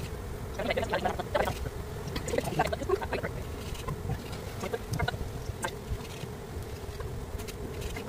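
A swarm of honeybees buzzing in a steady hum, with louder, irregular flurries of buzzing in the first few seconds.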